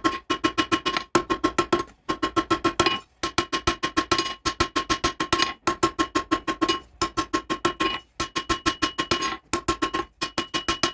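Rapid hammer blows on hot steel flat bar against an anvil, drawing the bar out to a taper. The blows come about six or seven a second in runs of about a second, with short pauses, and each blow rings.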